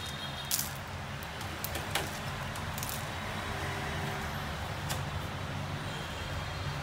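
Street-market background: a steady low rumble and hiss of traffic and bustle, with a few short, sharp clicks.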